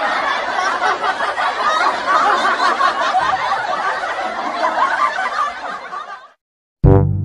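Many people laughing and chuckling at once, a dense steady laughter that fades out about six seconds in. A brass melody, trombone-like, starts just before the end.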